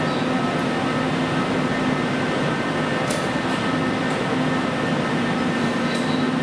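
Steady hum of a Keisei AE series train standing at the platform, its air conditioning and electrical equipment running, with a few faint high clicks partway through.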